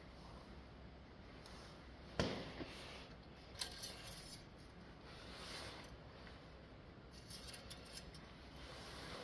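Engine oil dipstick being handled: a sharp click about two seconds in, a couple of lighter clicks, then soft sliding and rubbing noises as the dipstick is pulled and read.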